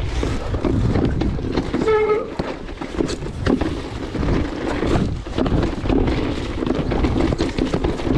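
Electric mountain bike riding fast down a rocky trail: tyres rumbling over stones and the bike clattering and rattling with many quick knocks. There is a brief squeal about two seconds in.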